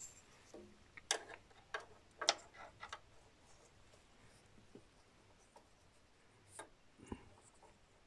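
Faint small plastic clicks and taps from a wiring-harness plug being handled and pushed onto a washing machine's heating element terminals: a quick cluster of clicks in the first three seconds, then two more near the end.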